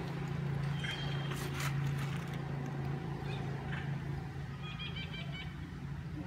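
A steady low hum like an idling engine or motor, dropping away near the end, with a few faint high chirps over it.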